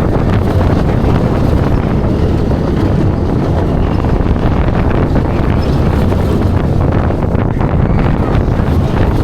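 Steady rush of wind on the microphone over the low rumble of a steel roller coaster train, Expedition GeForce, running along its track at speed.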